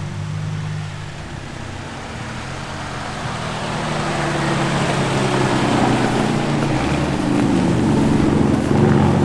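Ford pickup truck's engine running, getting steadily louder, with a rushing noise that grows alongside it.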